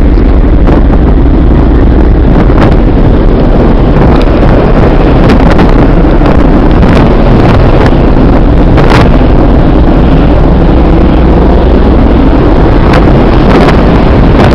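Wind buffeting the microphone on a ferry's open deck over the low rumble of the ship, loud and steady, with several sharp bangs from fireworks scattered through it.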